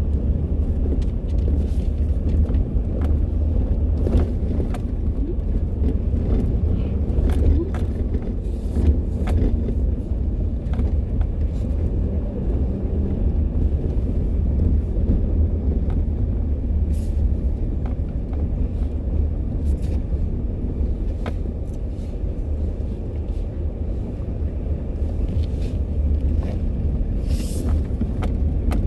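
Car driving along a dirt road, heard from inside the cabin: a steady low rumble of engine and tyres, with scattered light clicks and ticks.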